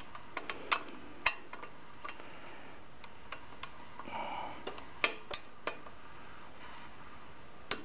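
Irregular metallic clicks and taps of a torque wrench and socket working a flywheel bolt as it is tightened, with a brief metallic ring about four seconds in.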